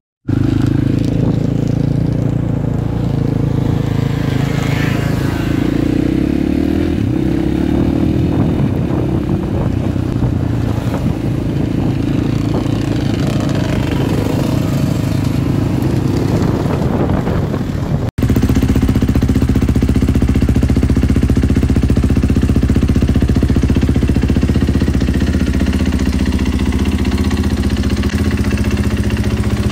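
Dirt bike engines running. First a motorcycle is ridden along a road, heard on board, its engine note shifting a little. Then, after a short break about eighteen seconds in, a Husqvarna dirt bike's engine runs steadily close up.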